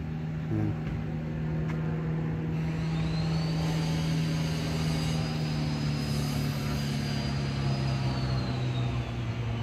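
Steady low engine hum of a motor vehicle running near the park's street. A thin high whine rises in about three seconds in, holds steady, then slides down in pitch near the end, as of a vehicle passing by.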